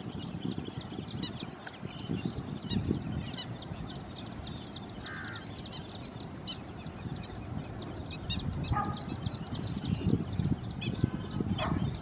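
Outdoor pond ambience: a dense, steady chorus of short high chirps over a low rumbling noise that swells near the start and near the end, with a few louder calls about five, nine and twelve seconds in.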